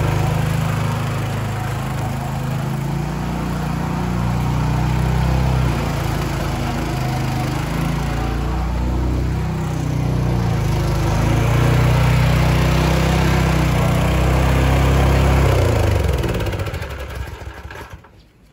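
A motor engine running steadily, its low note shifting up and down as the load changes, then fading away near the end.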